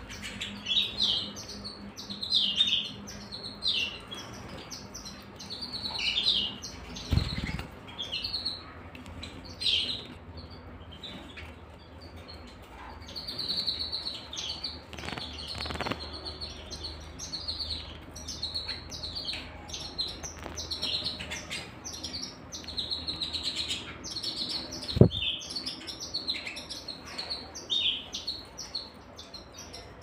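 Several caged canaries chirping and twittering in quick short calls, breaking twice into longer held trills. A dull knock comes about a quarter of the way in, and a sharp knock, the loudest sound, comes late on.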